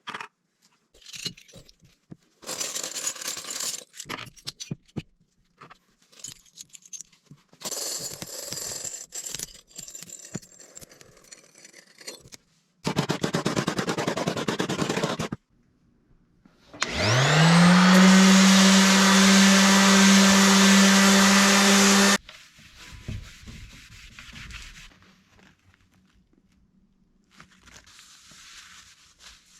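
Workshop work sounds: several separate spells of scraping and rubbing, then a power tool's motor spins up quickly, runs steadily for about five seconds and cuts off.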